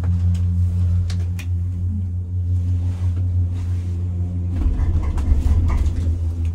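Enclosed gondola lift cabin riding the cable with a steady low hum. About four and a half seconds in comes a rougher rumble and rattle as the cabin runs over the pylon's sheave wheels.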